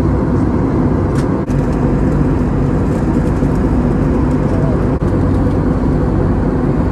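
Steady drone of a jet airliner in flight, heard from inside the cabin: turbofan engine and airflow noise, dipping for an instant twice.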